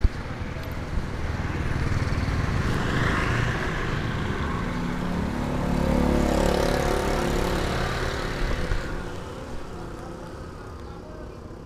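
A motorbike engine running close by in street traffic. It grows louder around the middle and fades away after about nine seconds.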